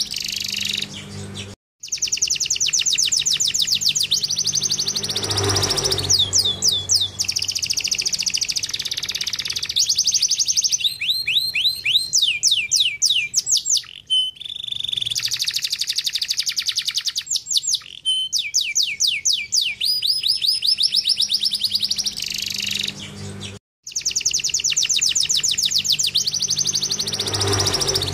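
Domestic canary singing a long, continuous song of fast trills and rolls of rapidly repeated high notes, some in falling sweeps, with a faint low hum underneath. The song breaks off abruptly twice.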